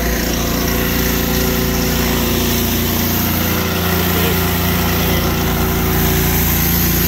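Trailer-mounted gas pressure washer's engine running steadily under load.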